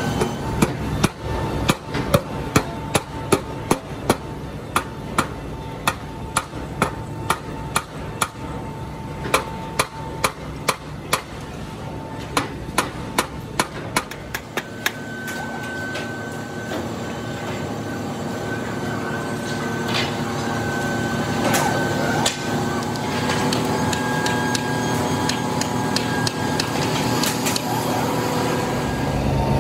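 Small hammer tapping at a gear pattern in a sand mould: sharp strikes about one to two a second, thinning to occasional strikes about halfway through. A steady machinery hum runs underneath and gets louder in the second half.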